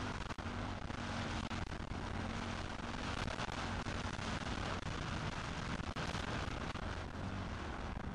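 Motocross bike engine running steadily, half buried under heavy wind rumble, with scattered knocks from riding over sand, picked up by a camera mounted on the rider.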